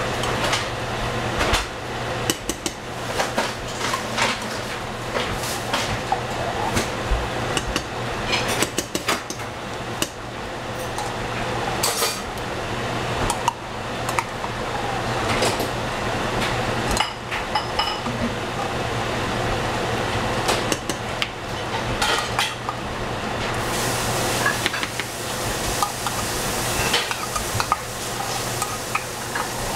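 Metal spoon scraping and clinking inside a tin can of tomato paste and tapping on the rim of a pan of simmering seafood stew, in many irregular knocks and clicks over a steady low hum. The hiss of the simmering stew grows louder over the last few seconds.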